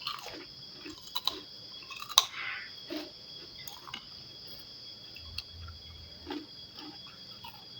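Close-up chewing and crunching of food (fried rice and krupuk crackers), with scattered sharp clicks, the loudest about two seconds in.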